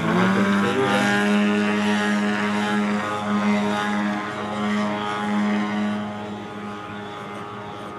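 Engine and propeller of a Pilot-RC Laser 103" V1 large-scale aerobatic model plane in flight at high throttle. A steady drone whose pitch rises briefly at the start, then holds and grows fainter near the end as the plane climbs away.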